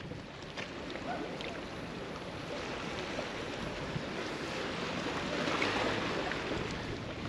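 Small sea waves lapping against a concrete jetty, with wind noise on the microphone, as a steady wash that swells slightly about two thirds of the way through.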